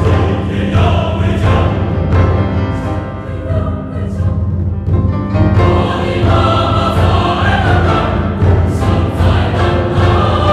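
Mixed choir of men's and women's voices singing in harmony over a sustained low drone. The upper voices drop back for a couple of seconds around the middle, then come in again.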